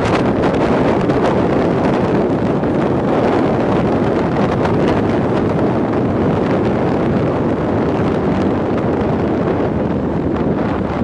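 Steady wind rushing over the microphone of a camera on a moving motorcycle, with motorcycle and traffic noise underneath.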